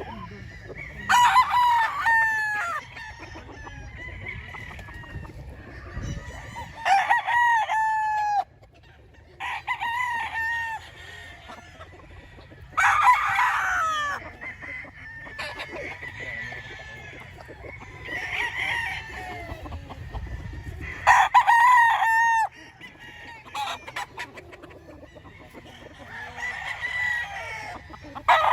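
Several roosters crowing in turn, about nine crows a few seconds apart, some loud and close and some fainter, each ending on a falling note. Chickens cluck between the crows.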